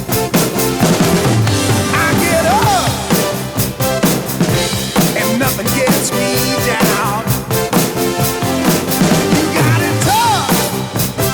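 Rock music with drums played along on a Roland TD-17 electronic drum kit: a steady beat of drum and cymbal hits over a pitched instrumental backing track.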